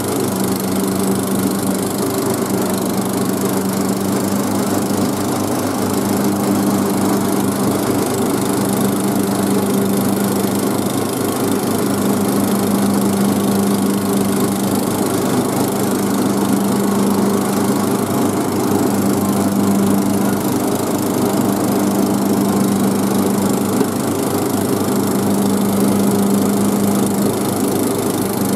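Cub Cadet riding mower's 17 hp single-cylinder Briggs & Stratton engine running steadily under load while mowing, an even drone with no popping or misfires.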